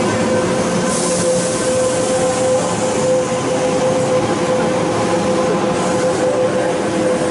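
Kintetsu limited express electric train alongside the platform, giving a steady loud hum with a held mid-pitched tone.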